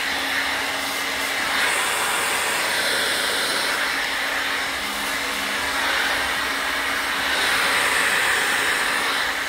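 Handheld hair dryer running steadily during blow-drying, a rush of air over a steady low motor hum, swelling louder twice as the dryer is moved about the head.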